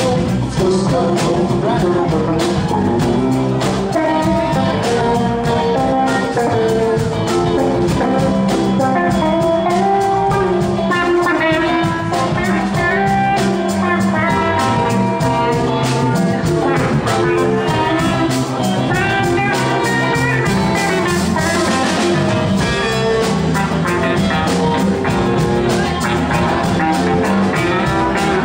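Live band playing: electric guitars over an electric bass and drum kit, a melodic line moving up and down above a steady low end.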